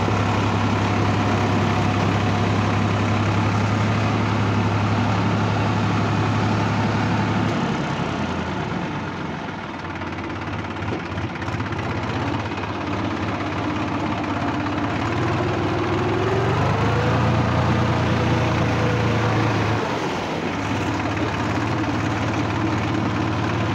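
Massey Ferguson 5245 tractor's three-cylinder diesel engine running steadily while working through deep mud. Its speed drops about a third of the way in, rises again past the middle, and dips briefly near the end.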